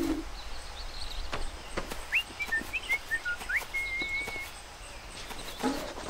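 Birds chirping: a run of short chirps sliding up and down about two seconds in, then one held warbling note, over faint light taps.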